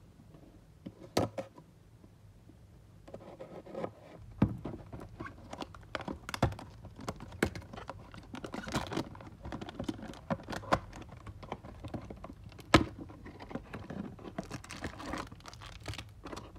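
Trading cards and their foil pack wrappers being handled: a busy run of small clicks, taps and crinkling, with a few sharper knocks, after a quieter start.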